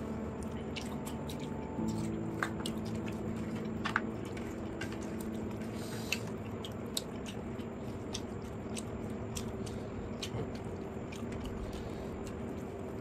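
Close-miked eating sounds of mutton curry with pulao: chewing and wet squishing, with scattered small clicks and smacks over a faint steady hum.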